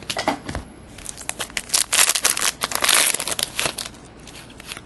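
Hockey trading cards being flipped and slid against one another in the hands, a dense run of crackling and clicking that is busiest through the middle.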